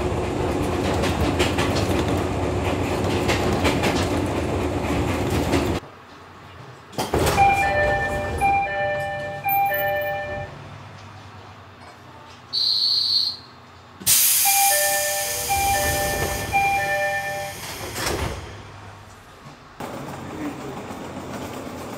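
Fujikyu 6000 series electric train (ex-JR East 205 series): steady running noise inside the carriage for about six seconds. After a cut, the door chime plays a short pattern of repeated electronic notes while the passenger doors stand open, a brief high beep sounds, and the chime plays again before the doors slide shut with a knock a few seconds before the end.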